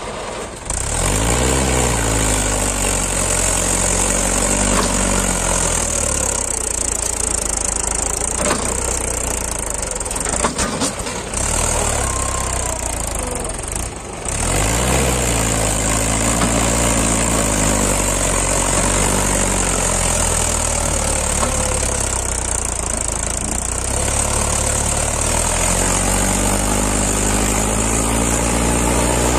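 Mahindra 475 DI tractor's diesel engine working under load, hauling a fully loaded sand trolley through soft sand. Its pitch climbs as it revs up about a second in and again about halfway through, over a steady high hiss.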